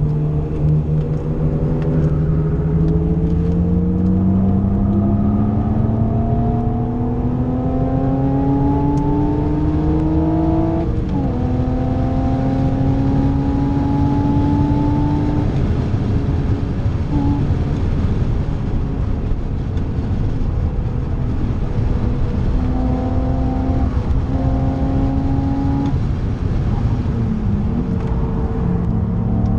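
BMW Z4 E85 3.0i's M54 straight-six engine, heard from inside the cabin, pulling hard with its pitch rising steadily for about ten seconds, then an upshift drops the pitch and it climbs again. Later it eases to a lower, steadier note with another drop in pitch before it picks up speed again near the end, over constant tyre and road noise.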